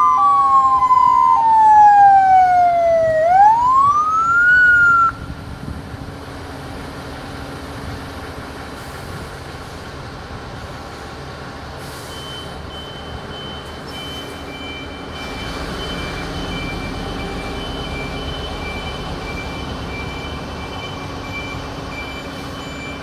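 Fire engine sirens wailing, the pitch sweeping slowly down and back up, then cutting off abruptly about five seconds in. After that, fire trucks' engines run quietly as the trucks move, with an intermittent high beeping from about halfway.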